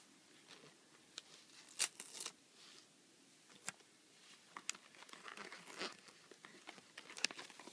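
Paper wrapping being peeled and torn off a small ribbon-tied box: faint crinkling with sharp short rips, the loudest around two seconds in and a few more scattered after.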